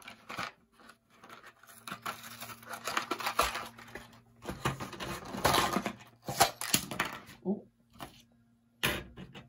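Cardboard and clear plastic blister packaging of an HO scale track turnout being torn and crinkled open by hand, in irregular rustling bursts with small clicks, loudest in the middle.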